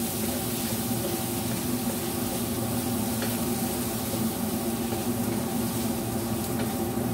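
Squid pieces sizzling as they fry in a wok, stirred and turned with a wooden spatula, over a steady hum.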